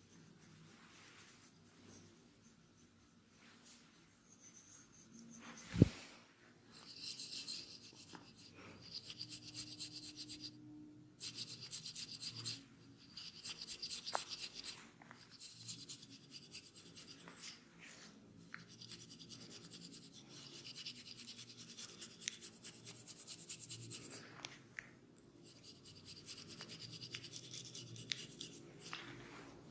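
Hands rubbing and scratching through long hair and over the scalp, in stretches of dry, crackly rubbing noise, during a head massage. One sharp crack stands out about six seconds in.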